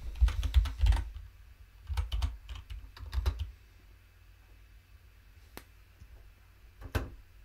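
Typing on a computer keyboard: quick keystrokes in three short bursts over the first three and a half seconds, then two lone clicks later on.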